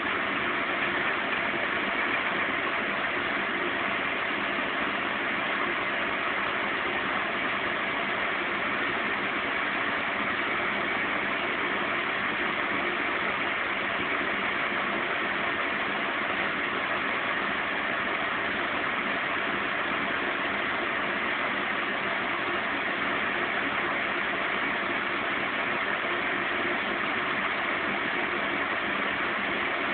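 Zanussi Z 630 front-loading washing machine in its final spin at 550 rpm: the drum and motor whir steadily, with no change in pitch or level.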